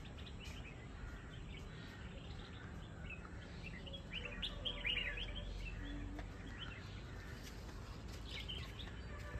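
Songbirds chirping in quick, short calls, busiest about halfway through and again near the end, over a low steady background rumble.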